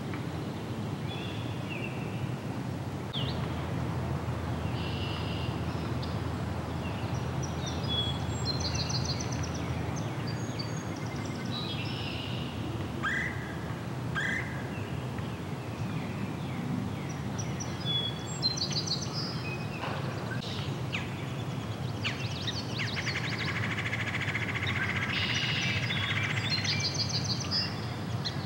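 Several small birds singing and chirping, with a short trilled song that recurs about every nine seconds and a busier stretch of calls near the end, over a steady low rumble.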